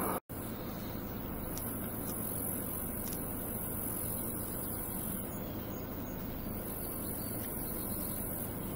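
Steady outdoor background noise, a low even hiss with a thin, high insect buzz that comes and goes above it. The sound cuts out for a split second just after the start.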